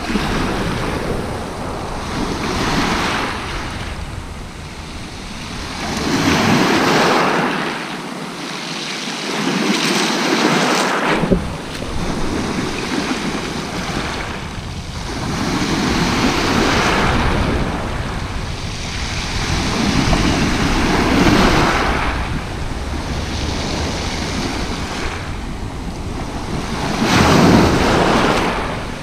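Sea waves breaking and washing up a shingle beach, one surge after another every few seconds, the loudest near the end.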